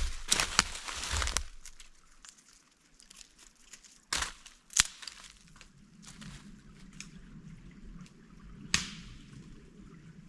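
Camping gear being handled: a crinkling rustle at first, then three sharp knocks spread through the rest, over a faint steady rush of water.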